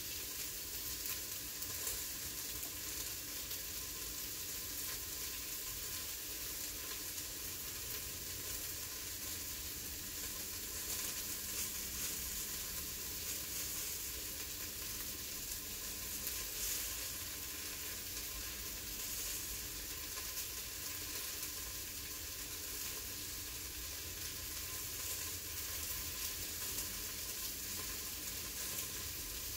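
Steady hiss of steam escaping from an Instant Pot's vent, even and unchanging throughout.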